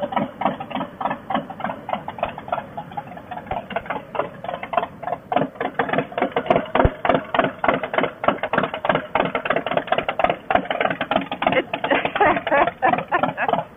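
Motorcycle engine idling with a rapid, uneven pulsing that stays steady throughout.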